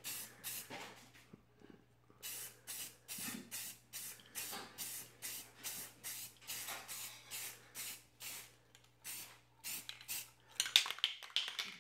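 Aerosol can of black spray paint hissing in short, quick bursts, about two a second, with a brief pause about a second in.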